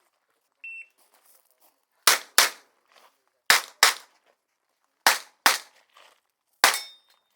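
Short electronic shot-timer start beep, then a competition revolver fired seven times: three quick pairs of shots and a single shot near the end.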